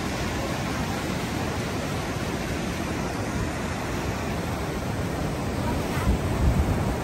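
Sea surf washing steadily against rocks, with wind buffeting the microphone in low rumbling gusts near the end.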